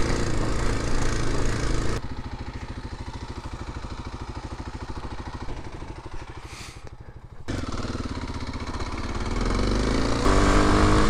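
Dual-sport motorcycle engine running under way, then idling with a steady, even beat for several seconds, then moving off again and revving up with rising pitch near the end.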